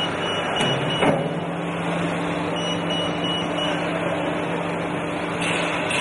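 Ermaksan HVR CNC hydraulic shear running, its hydraulic unit giving a steady low hum. There is a brief sharp clunk about a second in, and a faint high tone twice.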